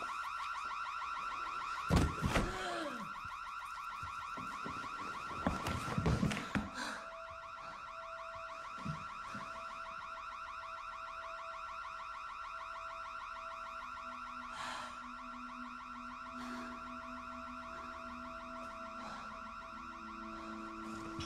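An electronic alarm sounds without a break, one steady high tone. Loud, sudden noises with strained cries come about 2 seconds in and again about 6 seconds in, and low held tones enter underneath from about 13 seconds.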